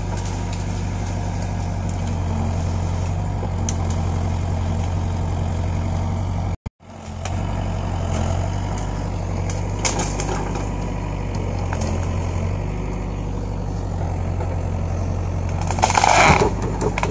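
Mini excavator's diesel engine running steadily under load as its arm pushes against a tree, with a few sharp cracks and a louder crashing stretch near the end. The sound cuts out for a moment about a third of the way in.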